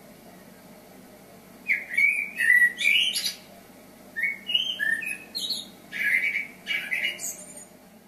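Common blackbird singing: three warbled, fluty phrases starting about two seconds in, each ending in thin high twittering notes.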